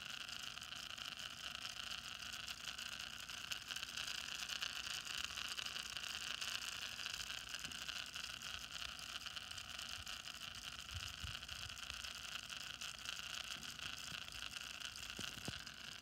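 A homemade reed-switch motor running steadily: a clear acrylic disc carrying neodymium magnets spins on its shaft over a coil that a reed switch pulses from two AA batteries, giving a continuous fast buzzing whir.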